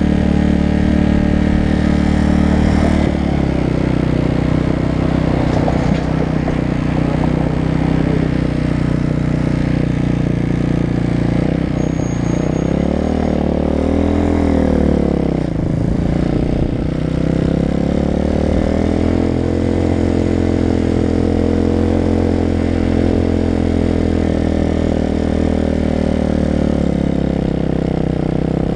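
Motorcycle engine running steadily. It revs up about halfway through, drops off sharply a couple of seconds later, then climbs again and settles at a steady pitch.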